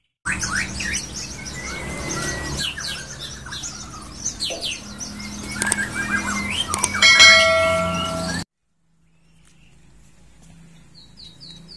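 Mixed songbird chirps and whistled sweeping notes, with a click about halfway through and a ringing bell-like chime about seven seconds in, then a sudden cut-off. After a short silence there is a faint low hum, and near the end a quick series of falling chirps.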